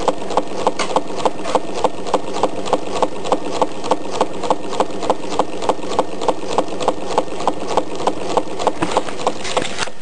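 Tea-light-powered Meccano Stirling engine running steadily, its metal parts and gearing clicking evenly about four to five times a second over a constant mechanical clatter.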